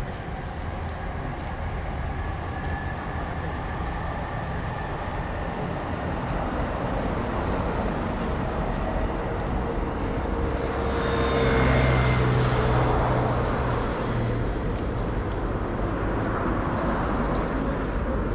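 Street traffic noise with a low steady rumble, as a motor vehicle passes close, swelling to its loudest about two-thirds of the way through and then fading.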